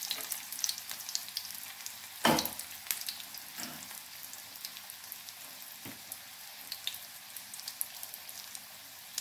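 Hot oil sizzling and crackling around rice-and-gram-flour patties shallow-frying in a pan, with one sharp knock about two seconds in and a couple of fainter ones later.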